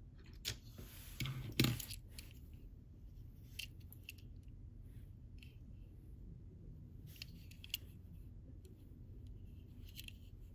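Hands handling small die-cast toy cars: a brief rustle with a couple of clicks in the first two seconds, then scattered light clicks as the metal cars are set down, picked up and turned over.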